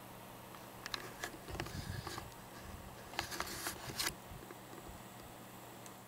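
Small fan clock's motor running with a steady low hum, with a few clicks about a second in and irregular clicking and rustling of handling between about one and a half and four seconds in.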